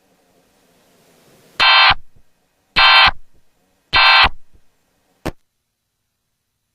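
Emergency Alert System digital data bursts: three short, loud, buzzy screeches about a second apart, the short end-of-message code that closes the alert, followed by a brief click.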